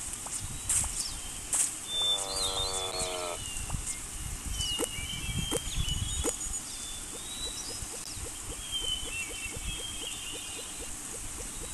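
Outdoor nature ambience of animal sounds: bird chirps, a brief animal call of about a second some two seconds in, and a run of quick ticks, about three a second, in the second half.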